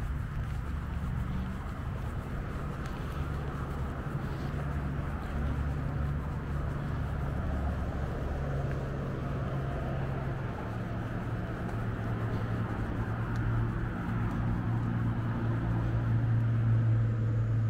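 A moving vehicle heard from inside: a steady low running drone whose hum steps up and down in pitch and grows louder near the end.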